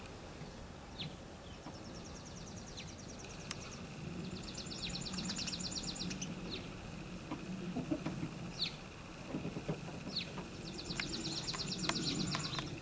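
Small birds chirping and trilling: several short rising chirps and three rapid, high trills of a couple of seconds each. Under them runs a low, soft murmur from the hens in the nest box, with one sharp click about three and a half seconds in.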